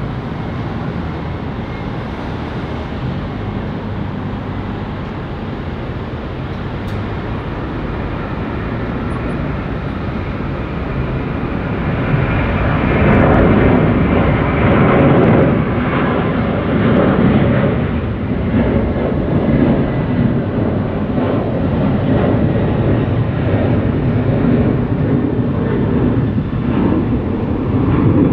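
Jet airliner's engines at takeoff power: a steady rushing noise that grows much louder about twelve seconds in and stays loud with a rough, rumbling flutter.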